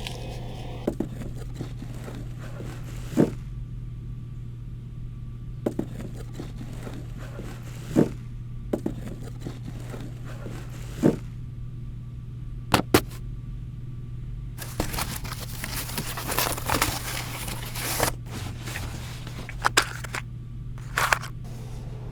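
Hands handling the cardboard packaging of a boxed computer mouse: scattered sharp taps and knocks, and a few seconds of scraping and rustling about two-thirds of the way through, over a steady low hum.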